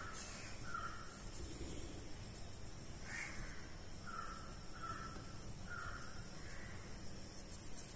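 Crows cawing, a series of about seven short, harsh caws spread over several seconds, over a steady faint high-pitched whine.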